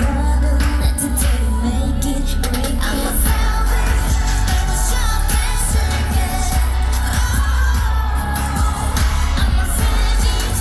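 Loud K-pop dance track with female vocals playing over a concert sound system, with heavy, steady bass.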